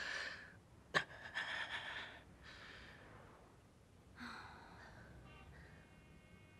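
A person's quiet, breathy sighing, with a sharp click about a second in.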